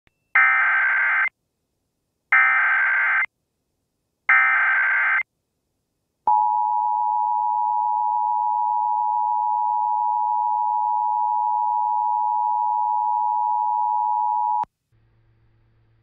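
Emergency Alert System SAME header: three bursts of shrill digital data tones, about a second each, with a second of silence between them. Then the EAS two-tone attention signal (853 and 960 Hz together) holds steady for about eight seconds and cuts off suddenly.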